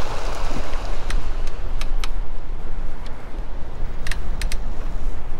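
Wind buffeting the microphone, a steady low rumble. In the first half second a splashing wash fades as a flock of water birds patters off across the water, and a few short sharp clicks come about a second in and again about four seconds in.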